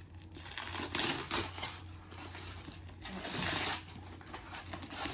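Plastic packaging crinkling and tearing as it is pulled off a new handbag, in two spells, the second a little after three seconds in. A low steady hum lies under it.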